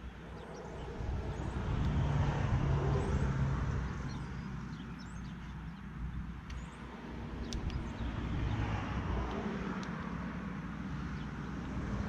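Vehicles passing on a nearby road: a rushing noise that swells and fades twice, over a steady low hum, with a few faint clicks of small parts being handled.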